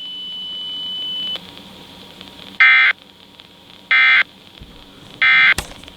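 Emergency Alert System SAME data bursts: three short, identical warbling digital tone bursts about a second and a quarter apart, the short form of the end-of-message code that closes an EAS test. Before them a steady high tone stops about a second and a half in, and a sharp click comes near the end.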